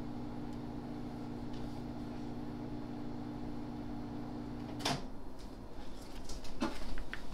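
A steady low hum with a few fixed tones, which stops abruptly at a sharp click about five seconds in, followed by a few fainter knocks and clicks.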